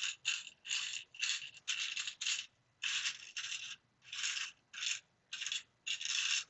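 Loose plastic LEGO pieces being handled and shuffled by hand: a run of short scraping rustles, about two a second.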